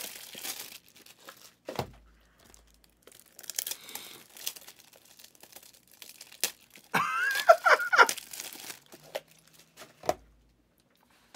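Trading cards and their packaging being handled: intermittent rustling and crinkling with a couple of dull thumps as the cards are set down. About seven seconds in, a short wordless voice sound, like a laugh or hum.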